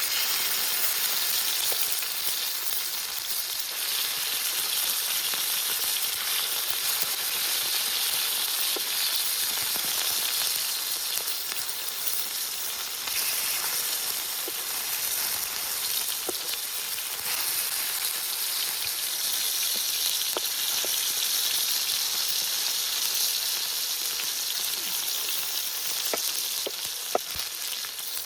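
Food sizzling as it fries: a steady hiss with scattered small pops.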